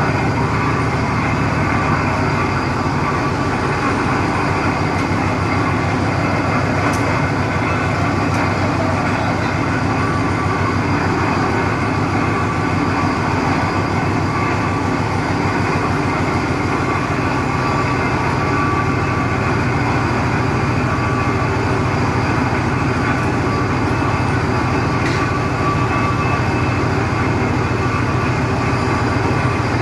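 Heavy piling machinery running steadily: a loud, continuous mechanical drone with no separate hammer blows.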